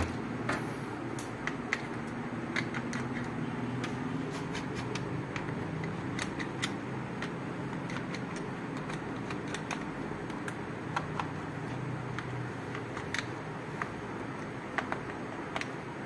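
Light clicks and taps from hands handling a laptop's bottom case, scattered irregularly over a steady low background hum.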